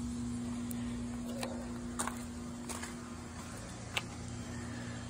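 Steady electric motor hum from running pool equipment, with a few light clicks and taps.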